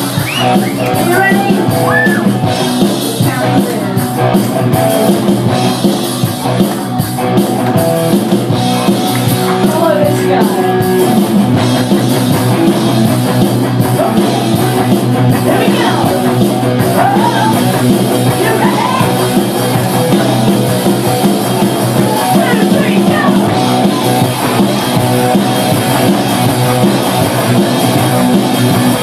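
A live rock band playing loudly and without a break, with drums and singing.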